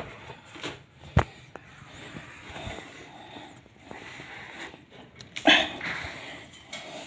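Knocks and scraping from a person climbing down out of a ceiling access hatch onto an aluminium stepladder, with a sharp knock about a second in and a louder scrape about five and a half seconds in.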